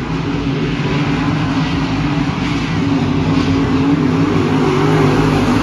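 A field of dirt late model race cars running on the track, their V8 engines making a continuous drone that wavers in pitch as the cars go round, growing gradually louder as the pack comes closer.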